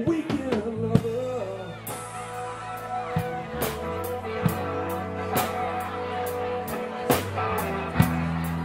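Live rock band playing a slow song: drum kit keeping a slow beat with cymbal hits, with bass and guitars holding sustained chords. A sung line trails off in the first second or so.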